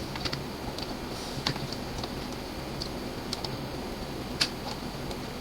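Scattered single clicks of a computer mouse and keyboard, irregular and a second or so apart, over a steady low background hiss.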